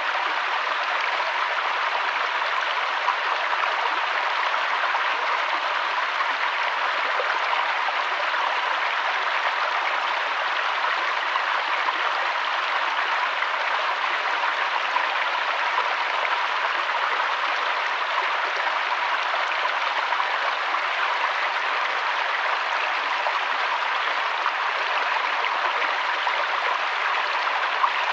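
River water flowing, a steady even rushing with no breaks or changes.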